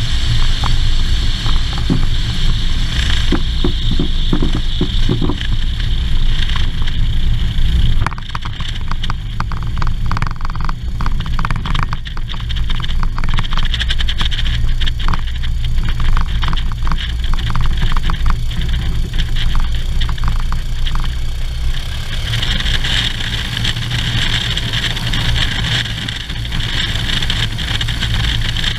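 Cessna single-engine piston aircraft running at low power as it rolls along a grass airstrip, heard from outside the cabin with wind noise. It gets a little quieter about eight seconds in, and scattered knocks and rattles from the wheels on the grass run through the middle of the stretch.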